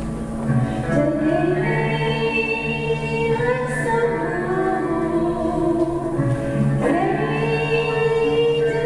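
Choir singing a slow song in held chords, with new phrases entering about a second in and again near seven seconds.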